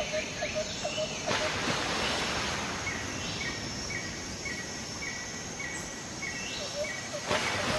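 Outdoor ambience on a coastal forest trail: a steady rushing noise, with a high chirp from a bird or insect repeating about twice a second in the second half.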